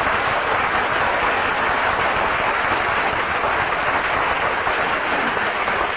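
Studio audience applauding, a steady wash of clapping held at an even level throughout.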